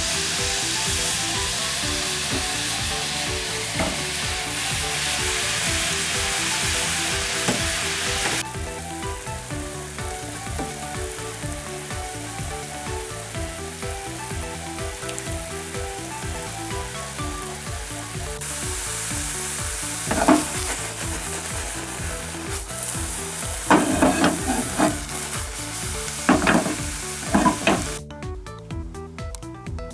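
Water boiling hard in a frying pan, a steady bubbling hiss, with a fried tofu pouch (aburaage) simmering in it; the hiss eases about a third of the way in and returns, and several sharp knocks come late on. The boiling cuts off near the end, leaving only background music with a steady beat.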